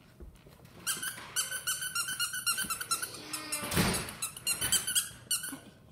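Squeaky plush dog toy squeezed over and over, giving a quick run of short, high squeaks of steady pitch, with a few more squeaks later and a short burst of noise about four seconds in.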